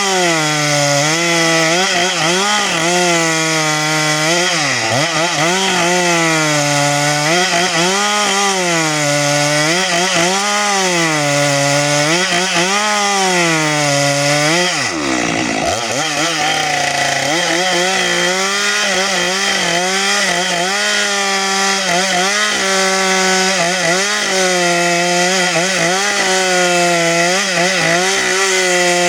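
Two-stroke chainsaw at full throttle cutting through a log, its engine pitch swinging up and down every couple of seconds as it loads and unloads in the cut. About halfway through the engine bogs down hard under load and picks back up about two seconds later, then runs steadier at high speed.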